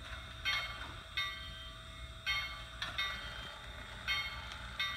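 Soundtraxx Tsunami 2 sound decoder in an HO scale Bachmann Norfolk and Western 2-8-0 model, playing slow steam exhaust chuffs through its megabass speaker: six short, sharp chuffs, roughly one a second, over a steady low rumble as the locomotive moves slowly.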